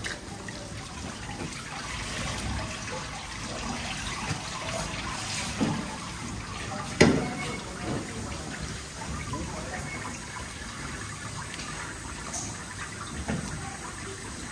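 A stream of running water splashing onto a remora on a plastic cutting board as the slime is rinsed off its skin, with a few knocks on the board, one sharp and loud about halfway through.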